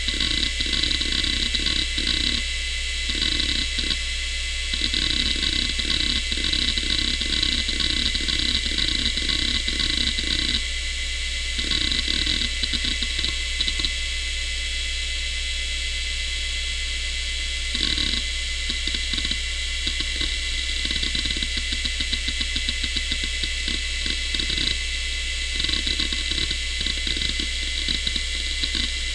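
Quantum ProDrive LPS 105S hard drive running with its cover off: a steady spindle whine and hum under rapid runs of head-seek clicks and chatter as it reads while loading Windows 95. The seeking is heavy at the start, thins out in the middle, and picks up again from about 18 seconds in.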